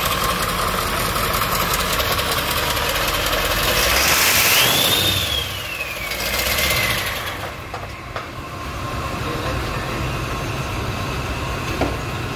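International T444 7.3-litre V8 diesel idling steadily on a test stand. About four seconds in, a short rush of noise comes over the engine, with a brief whistle that rises and then falls.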